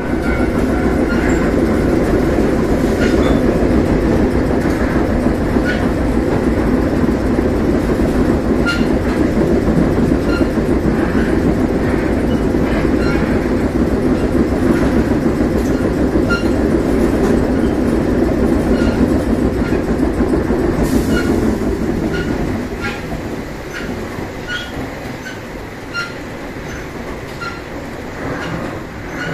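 Running noise of a passenger train heard from inside the car: a steady rumble of wheels on rail with regular clicks as the wheels cross rail joints. About 21 seconds in there is a brief hiss, and the rumble then gets quieter as the train slows.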